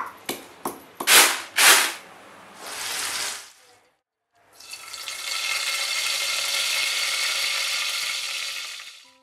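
A stone pestle pounding in a stone mortar: a few sharp knocks, two of them heavier. After a short silence, curry leaves sizzle steadily in hot oil for about four seconds, then stop.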